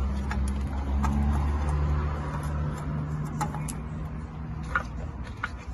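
A low, steady mechanical hum like a vehicle engine running, fading after about four seconds, with a few light metallic clinks near the end.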